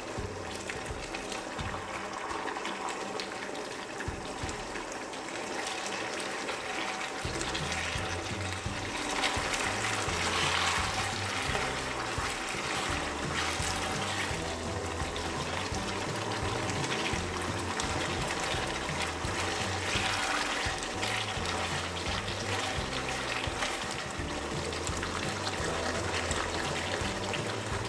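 Chicken jalfrezi sauce with tomato paste and ketchup simmering and sizzling in a pan, a steady bubbling hiss. Background music with a bass line comes in about seven seconds in.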